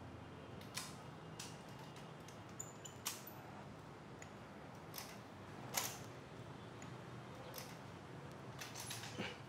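Scattered faint clicks and light knocks of household items being handled and set down during kitchen tidying, about eight in all, the clearest about six seconds in.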